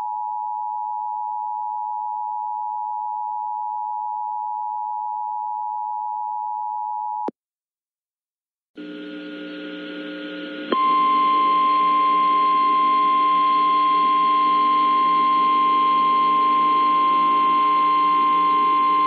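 Emergency Alert System two-tone attention signal, a steady dual tone that cuts off after about seven seconds. After a short silence a hissy radio background with a low hum comes in, and about ten seconds in the NOAA Weather Radio 1050 Hz warning alarm tone sounds, a single loud steady tone.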